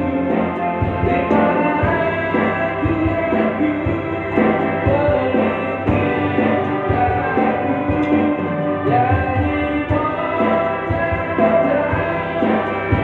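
Live band music with an electric bass guitar playing, during a sound check.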